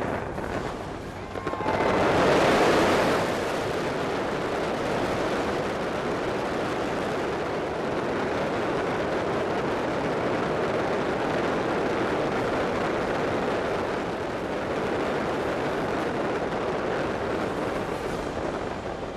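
A massed fireworks barrage from a skyscraper's facade: many shells bursting at once in a dense, steady wash of bangs and crackle. It swells to its loudest about two seconds in.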